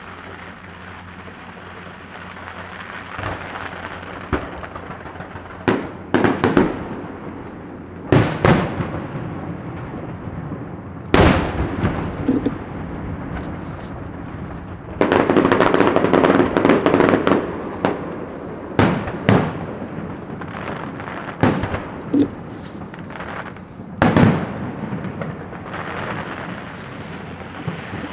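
Fireworks going off: a string of sharp bangs spaced irregularly a second or more apart, with a dense stretch of rapid crackling about halfway through.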